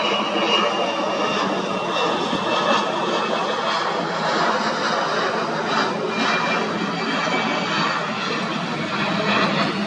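Business jet's turbofan engines running: a steady loud rush with a thin high whine that sags slightly in pitch.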